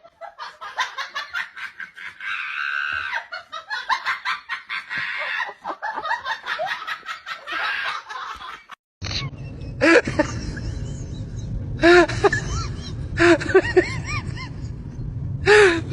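People laughing in short repeated bursts. The sound cuts out briefly about nine seconds in, and the laughter then comes back over a low background rumble.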